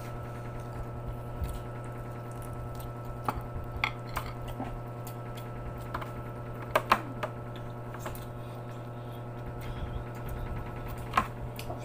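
Eating by hand: quiet chewing with a few sharp lip-smack and finger clicks, two close together about seven seconds in, over a steady low hum.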